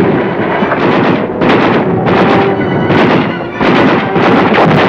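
Battle sound of gunfire and explosions: a string of loud blasts roughly a second apart, each trailing off into rumble.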